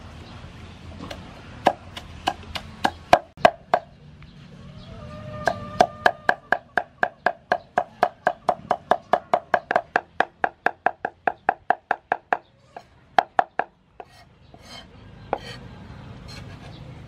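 Cleaver chopping dried red chillies on a round wooden chopping block. A few scattered chops come first, then a fast, even run of about four to five strokes a second, then a few last chops.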